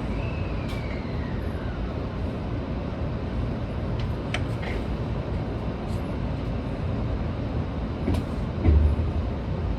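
Seibu 20000 series electric train running steadily just after pulling out of the station: a continuous low rumble of wheels on rail, with a short falling whine about a second in, a few sharp clicks in the middle, and a louder thump near the end.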